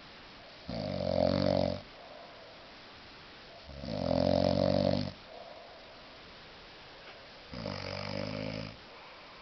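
A man snoring heavily in a deep, drunken sleep: three long, pitched snores roughly every three and a half seconds, with quieter out-breaths between them.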